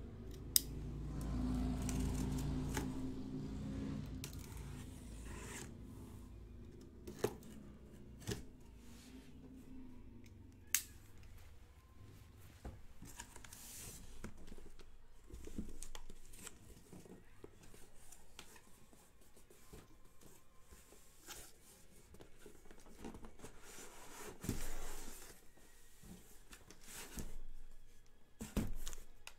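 A cardboard master case being opened: its packing tape is cut and torn and its flaps are pulled back. The case is handled with a low rumble in the first few seconds, with scattered sharp clicks and knocks and a couple of tearing swishes.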